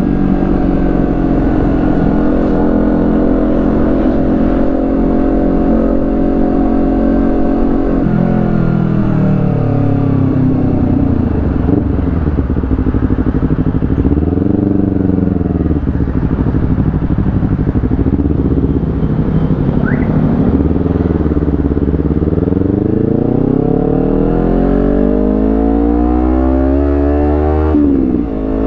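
Honda CBR250RR parallel-twin engine heard through an aftermarket carbon slip-on exhaust while riding. It runs at a steady speed for the first eight seconds or so, then engine speed falls and rises again several times. Near the end it climbs for a long stretch, and drops briefly just before the end, as with a gear change.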